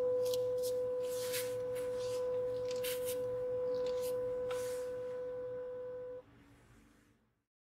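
Jaguar rear parking-sensor warning tone held as one steady, unbroken beep, the continuous signal that an obstacle is in the closest zone behind the car. It cuts off suddenly about six seconds in. A few brief faint rustles and clicks sound over it.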